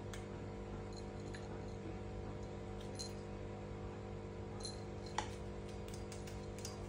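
Faint scattered clicks and taps as a kitten paws and bites a ribbon on a tiled floor, with one sharper click about five seconds in, over a steady low hum.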